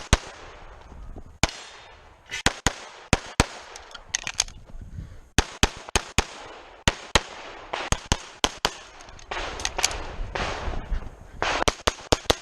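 Handgun firing a practical-shooting stage: quick pairs of pistol shots fired as strings, separated by short pauses of a second or two.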